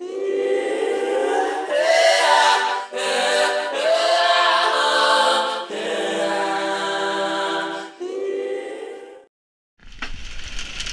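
A cappella vocal harmony: several voices singing held chords that change every second or so. It cuts off about nine seconds in, and after a short gap a steady noisy rush with a low rumble starts.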